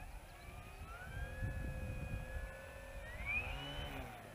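RC foam model plane's electric motor and propeller whining under throttle, the pitch holding fairly steady and then rising sharply about three seconds in, over a low rumbling noise.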